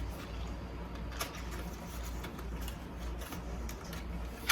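Faint rustling and light clicks of a small soft cardboard product box being handled and opened, with one sharper click at the very end, over a steady low hum.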